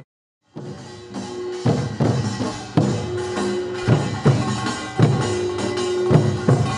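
Korean folk percussion music for a fishermen's work song: after a brief silent gap at the start, drums strike a slow, steady beat about once a second, with a held pitched note sounding between the strikes.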